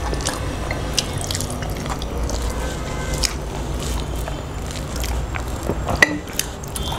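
Close-up eating sounds: wet chewing and lip smacking, with fingers squishing rice and vegetable curry. Sharp mouth clicks come throughout, one louder about six seconds in, over a low steady hum.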